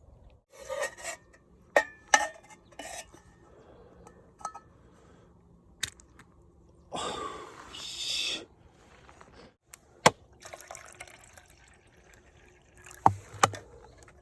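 Cookware and utensils clinking and knocking during food preparation, with a stretch of about a second and a half of pouring or rustling noise about seven seconds in. Sharp knocks come near the end.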